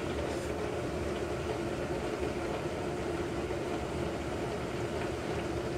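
Steady mechanical hum of a running motor.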